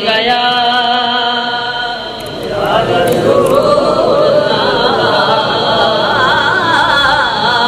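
A boy's solo voice singing a naat without accompaniment, drawing out the salawat 'sallallahu alaihi wa sallam'. He holds one long steady note for about two seconds, then moves into a wavering, ornamented melodic line.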